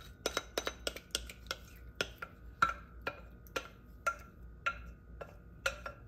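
Metal spoon clinking and scraping against a glass mixing bowl as a thick casserole mixture is scooped out, in quick irregular taps, about three a second.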